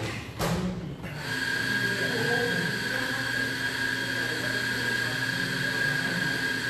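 A small electric motor starts up about a second in and runs with a steady high-pitched whine that does not change pitch.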